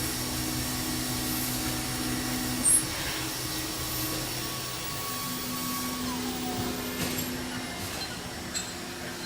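1996 Haas VF-3 vertical CNC mill running a machining cycle on aluminium: a steady hum under a hiss of machining noise. A short, sharp high-pitched sound comes about three seconds in, a tone drops in pitch around six seconds, and there are a couple of light ticks near the end.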